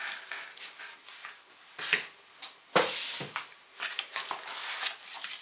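Books and a cardboard box being handled: irregular rustling and scraping with a few light knocks, the loudest a rustling scrape about three seconds in.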